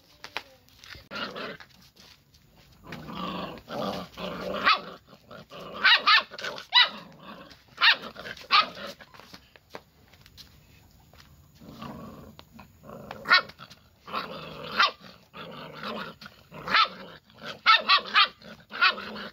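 Young mongrel puppy barking in short, high-pitched yaps, in clusters with pauses and a quieter stretch about halfway through.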